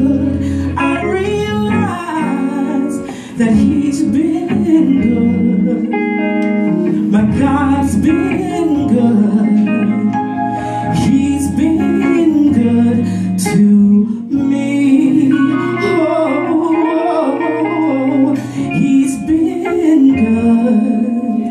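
Live gospel song: a woman singing with bending, sliding vocal lines over electric guitar and keyboard accompaniment.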